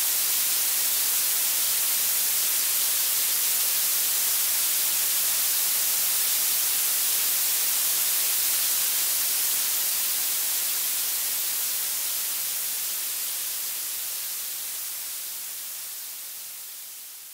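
Blue noise: a steady, even hiss weighted toward the high end, fading out slowly over the second half.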